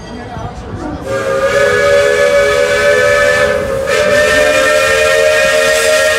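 Steam locomotive's chime whistle blowing one long blast, a chord of several steady tones that starts about a second in and wavers briefly midway.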